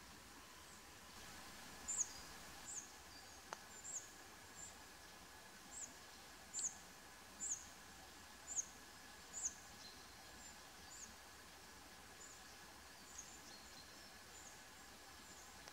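A small bird giving a series of short, high, thin calls, each dipping slightly in pitch, about one a second, over a faint steady hiss. A single sharp click comes about three and a half seconds in.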